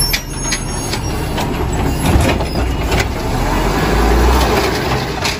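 Automated side-loader garbage truck running while its mechanical arm grabs and lifts a wheeled trash cart, with a steady low engine rumble and several sharp knocks and clanks.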